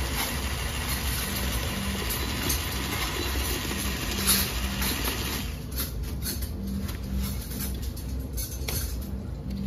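A small motor humming steadily. A hissing layer over it fades out about five and a half seconds in, and a few light clicks follow.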